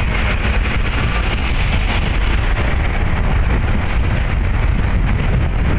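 Steady, loud rush of a vehicle on the move: engine and road noise, heaviest in the low end, with no horn sounding.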